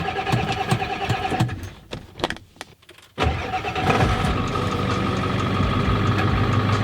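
Diesel truck engine being cranked on the starter after its glow plugs have warmed, pausing, then cranked again and catching about three seconds in, settling into a steady idle. It is a hard start that takes a second try.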